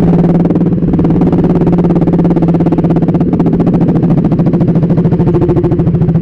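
Motorcycle engine running at a steady, low speed, heard as a loud, even hum with a fast pulse from the engine's firing.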